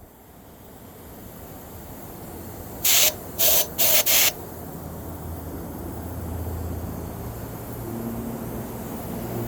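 Four short blasts of compressed air from a compressor's air nozzle, blown in puffs through a lawn mower's disconnected fuel line to clear the blockage, over a low hum that slowly grows louder.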